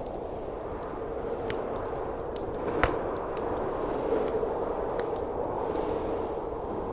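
Wood fire crackling and popping over the steady noise of blizzard wind, with one sharper pop about three seconds in.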